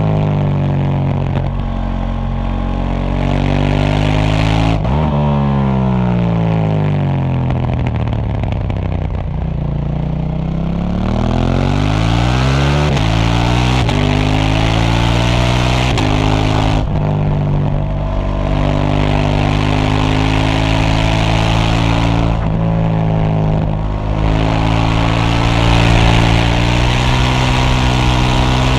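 KTM 790 Duke's parallel-twin engine through its stock exhaust, under way: the revs drop away for several seconds, then climb again under acceleration, broken by gear shifts, with wind rush on the microphone while it pulls.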